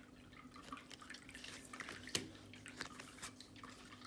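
Soft clicks and light taps of linen-finish tarot cards being handled and flipped through, with one sharper tap about two seconds in.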